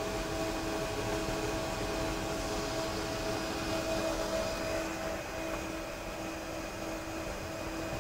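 Aircraft auxiliary power unit (APU) running: a steady turbine whine and hum with several constant tones.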